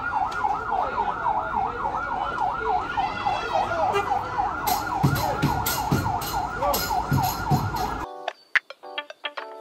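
Emergency-vehicle siren in a fast yelp, its pitch sweeping up and down about three times a second. About eight seconds in it cuts off suddenly, and upbeat background music with a beat takes over.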